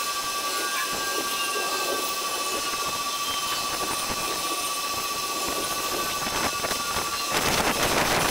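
Outdoor ambient sound sped up about twenty times into a steady rushing hiss, with a thin whistle-like tone and scattered short chirps. About seven seconds in it turns louder and rougher, full of crackling ticks.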